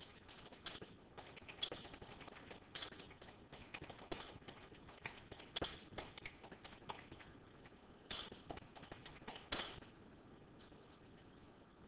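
Irregular light taps and clicks, a few a second and uneven in loudness, stopping near the end.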